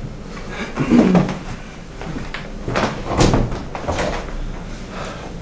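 An interior door being opened, with a few separate clicks and knocks from the handle and latch spread over several seconds.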